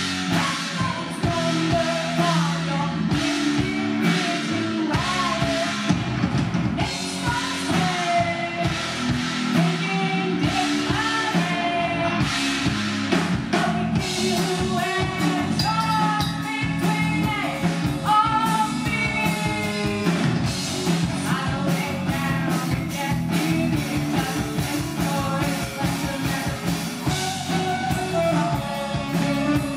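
Live rock band: a woman singing over electric guitar, electric bass and a drum kit. Near the end she plays a flute line over the band.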